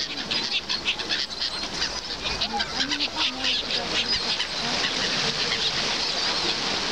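A large flock of gulls and Eurasian coots on the sea, calling in a dense run of short, overlapping calls.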